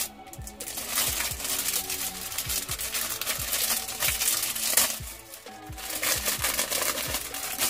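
Clear plastic packaging crinkling and rustling in uneven handfuls as a bundle of hair weave is pulled out of its bag, with a short lull about five seconds in.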